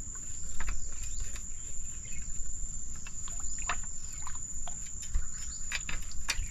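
A steady high cricket buzz, with irregular sharp clicks and crackles on top of it about once or twice a second. The hunters take the crackling for a crab crunching in its hole.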